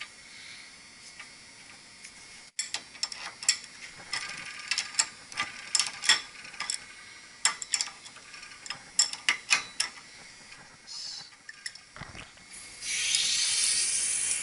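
Metallic clicks and ticks in irregular clusters, with a short ring after each, from tools and threaded pipe fittings. About two seconds before the end a steady, loud hiss starts: pressure escaping at a leaking pipe union.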